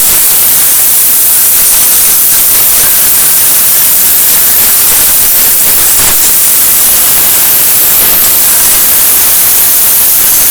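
Compressed-air blow gun blowing out a truck's engine bay: a loud, steady hiss that holds without a break.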